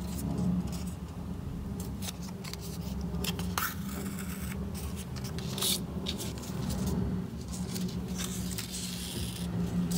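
Cardstock puppet pieces rustling and scraping as baker's twine is threaded with a needle through their punched holes, with a few soft clicks. A low steady hum runs underneath.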